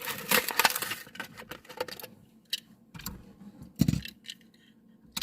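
Plastic blister packaging of a Hot Wheels die-cast car being torn and pried open: crackling and sharp snapping clicks, densest in the first second, then scattered clicks and a dull knock about four seconds in.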